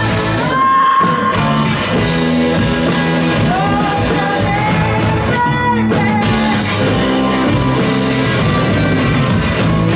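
Blues-rock band playing live: a woman singing over electric guitars, bass and drums, with long held notes.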